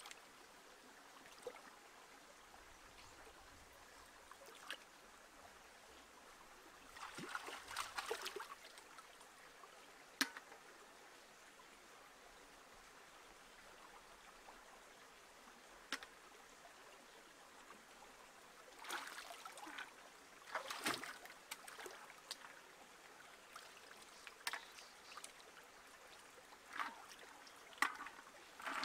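Shallow stream trickling faintly, broken a few times by small splashes of hands in the water and sharp clicks of snail shells dropped into a clay pot.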